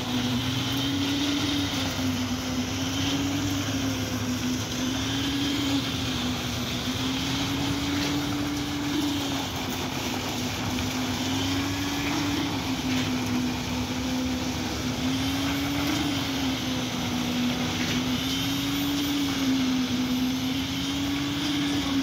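Diesel engine of a truck-mounted concrete boom pump running steadily under load while it pumps concrete, its pitch rising and falling every few seconds.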